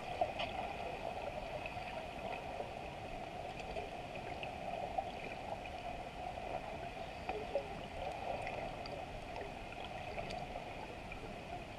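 Muffled underwater ambience: a steady, faint wash of water noise with scattered small clicks and ticks.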